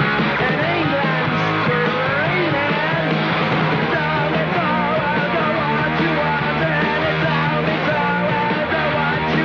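Loud punk rock music playing steadily, a full band sound with bending melodic lines.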